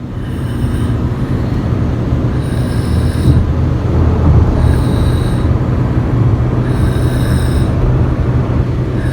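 A sleeping baby breathing with a soft, high, whistling snore about every two seconds, over a loud steady low rumble.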